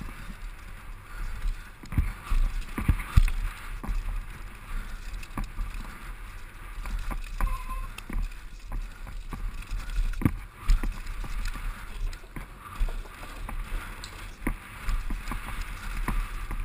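Mountain bike descending a rough dirt downhill trail, heard from a helmet-mounted camera: a steady rush and low rumble of tyres and wind, broken by frequent sharp knocks and rattles as the bike hits bumps.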